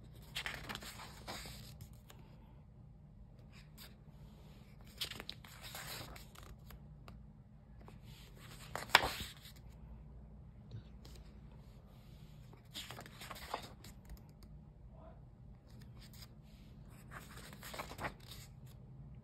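Sketchbook pages being turned by hand, paper rustling and flipping five times a few seconds apart, the sharpest flip about halfway through.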